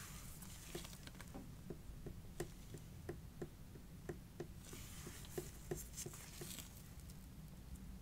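Light, even tapping on fragrance packaging, about three taps a second, with soft rustling at the start and again around the fifth and sixth seconds.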